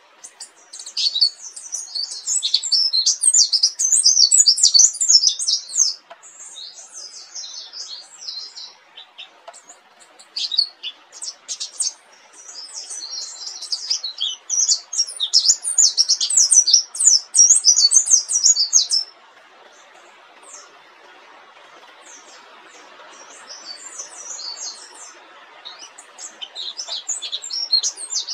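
Pleci dakun white-eye singing a long rolling song of rapid, high twittering chirps, in two long loud bouts with shorter scattered phrases between and near the end, over a faint steady hiss.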